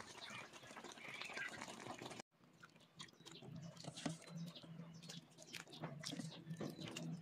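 Pot of sinigang soup simmering with a soft hiss. About two seconds in, a ladle scoops broth and vegetables into a bowl, with scattered splashes and clinks against the pot and bowl over a low steady hum.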